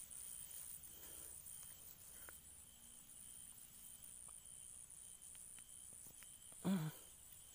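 Night insects, crickets or the like, chirping in a steady, high, pulsing trill, with a short vocal sound from a man near the end.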